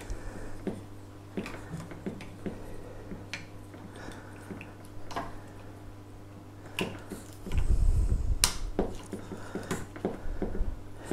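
Scattered small clicks and rattles of a GoPro camera being handled and pushed onto the connector of a DJI Zenmuse H3-3D gimbal. About two-thirds of the way through there is a dull low bump lasting about a second, ending in a sharp click. A steady low hum runs underneath.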